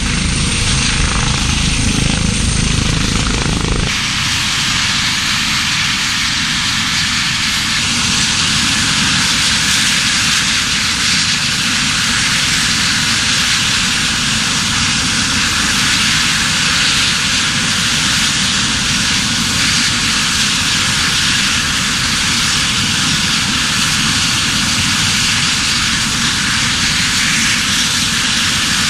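Medical transport helicopter's turbine engine and rotor running loudly and steadily. A deep low rumble drops away about four seconds in, leaving a steady rushing hiss.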